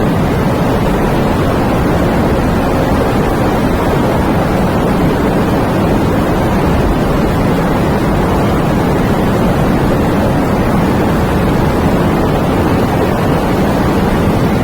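Wind and rain: a steady rushing, fullest in the low range, with no gusts or single drops standing out.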